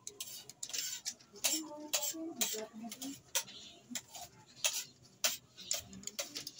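Small irregular metal clicks and scrapes of a screwdriver turning a screw terminal and a thin wire being fastened to a rice cooker's switch part.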